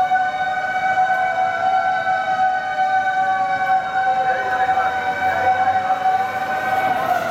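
Fire engine sirens sounding together on an emergency run: one held at a steady pitch while another slowly rises and falls across it.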